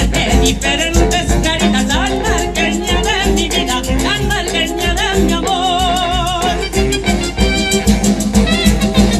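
Salsa-style Latin dance music from a saxophone band with conga drums and percussion, with a steady beat and held, wavering melody notes.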